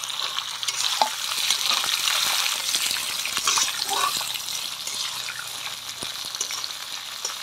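Freshly added star fruit pieces sizzling in hot mustard oil and caramelized sugar in a kadai, with a spatula stirring and scraping the pan now and then.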